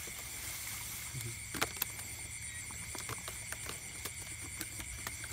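Light clicks and knocks of a woven bamboo basket-trap being handled and its lid worked, with rustling grass, the sharpest knock about a second and a half in. Behind it runs a steady high-pitched trill of night insects.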